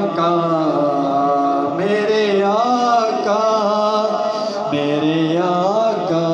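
A man singing a naat unaccompanied, in long held notes that swell and bend in pitch, heard through a Peavey XR 1200F+ powered mixer and its speakers with the mixer's ping-pong delay echo on the voice.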